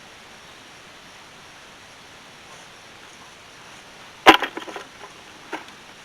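Digging into compacted, rocky garden soil: one sharp strike about four seconds in, then a brief crackle and a single click a second later, over a steady wind hiss.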